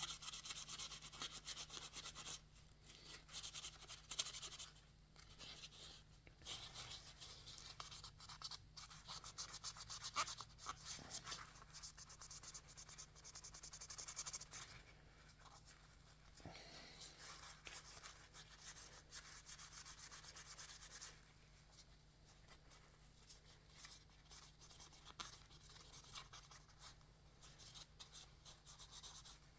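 Faint rubbing and scratching of paint marks being wiped off a vintage plastic action figure, in quick repeated strokes that grow quieter about two-thirds of the way through.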